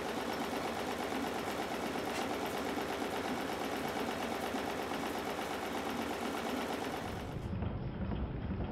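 Stuart Models three-cylinder triple expansion steam engine running on live steam, its exhaust and valve gear giving a rapid, even mechanical beat. About seven seconds in the sound turns duller and deeper.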